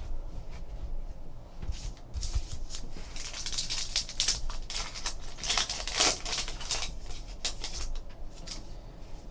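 Trading card pack wrapper being torn open and crinkled by hand: a run of short crackling rustles, busiest in the middle of the stretch, with a few soft knocks of cards being set down near the start.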